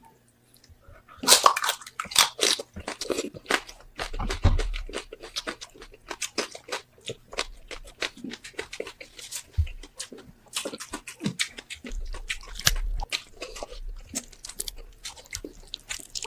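Close-up eating sounds of roasted pork head: crisp skin crunching and wet chewing and smacking, in a dense run of bites that starts about a second in.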